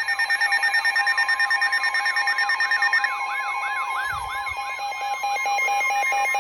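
Electronic siren-like alert tones over radio: rapid downward sweeps about four a second over steady tones, giving way about five seconds in to a fast-pulsing steady tone.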